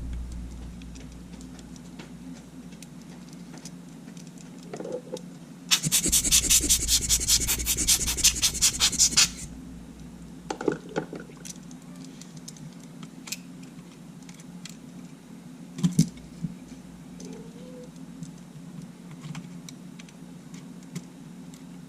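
A rapid run of scratchy, rasping strokes, about eight a second, lasting some three and a half seconds, with a few light clicks of small-part handling afterwards.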